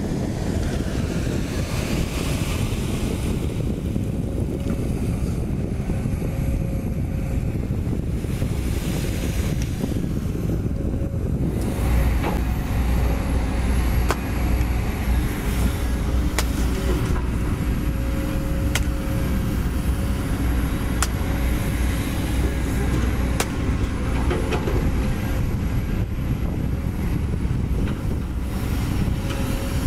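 Heavy diesel construction machinery running steadily. From about twelve seconds in, the diesel engine of a Komatsu PC200 hydraulic excavator runs with a deeper rumble as it digs, with a few short sharp knocks every couple of seconds.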